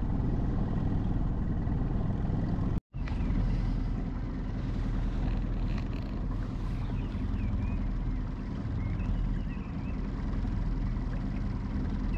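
Boat motor running steadily at low trolling speed, a constant low rumble, broken by a short silent gap about three seconds in.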